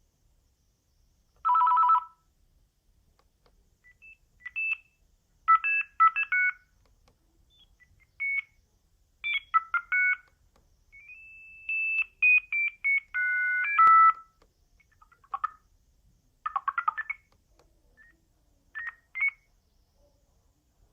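Sagem myX-1 Trio mobile phone playing its ringtones: runs of short electronic beep notes with pauses between, including a brief rising glide partway through.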